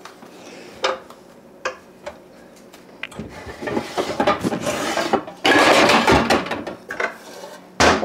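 Pots and pans clattering and knocking together as a pan is pulled out of a lower kitchen cabinet: a few single clinks at first, then a busier stretch of rattling and knocks in the second half.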